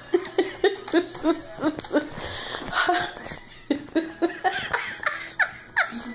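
A person laughing in quick repeated bursts, then several short high squeaks rising in pitch near the end.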